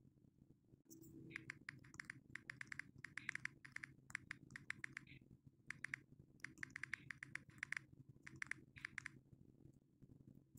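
A smartphone's on-screen keyboard clicking as text is typed, in quick runs of key taps separated by short pauses.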